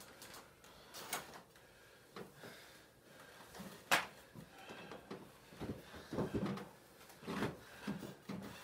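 Faint footsteps and shuffling on a wrestling ring's mat, with scattered knocks and one sharp knock about four seconds in.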